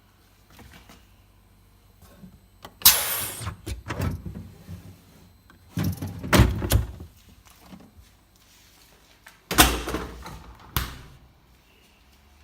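Hitachi RG-620HJ refrigerator doors and drawers being opened and shut, giving several separate loud thuds and knocks about a second or so apart.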